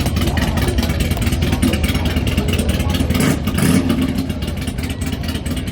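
Motorcycle engine running with a rapid, even beat, rising briefly in loudness about three seconds in.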